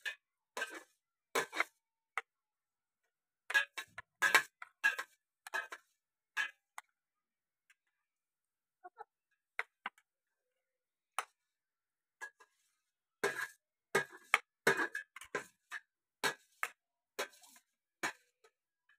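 Metal spoons clicking and scraping against a ceramic plate of rice as two people eat: scattered short clicks with quiet gaps, busiest a few seconds in and again from about thirteen seconds in.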